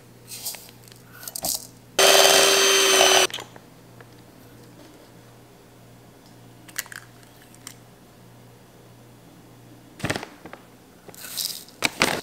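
Electric hand mixer runs briefly, about a second, then stops. Soft clinks and scrapes of ingredients being tipped into a mixing bowl and stirred follow, with a few knocks near the end.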